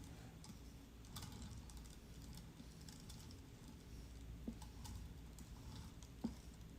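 Faint scraping and light ticking of a trimming tool carving leather-hard clay, with two small knocks near the end.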